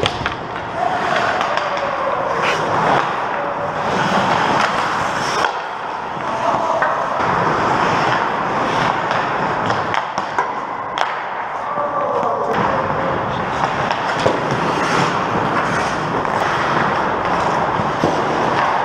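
Ice hockey skate blades scraping and carving on the ice close by, with sharp clacks and knocks of sticks and puck scattered throughout, clearest about five, eleven and fourteen seconds in.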